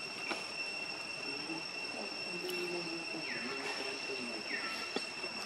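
Outdoor ambience dominated by a steady high-pitched insect drone, with two short falling whistle-like calls a little past the middle and a few faint clicks.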